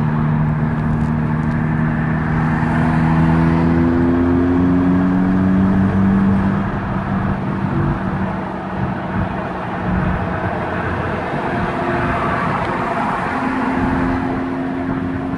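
Mk5 VW GTI's turbocharged 2.0-litre four-cylinder engine running at light throttle, heard inside the cabin over road noise. The engine note climbs slowly in the first few seconds, then holds steady. It runs smooth with no misfire on new Audi R8 coil packs and NGK laser spark plugs.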